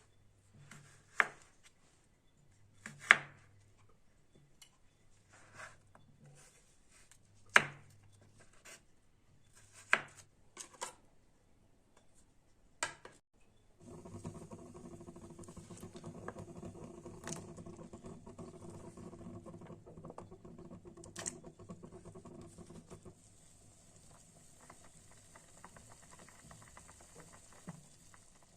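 Kitchen knife cutting potatoes on a cutting board: single sharp knocks every second or two. About halfway through, a steady rushing sound with a low hum starts and runs for about nine seconds, then only faint light ticks remain.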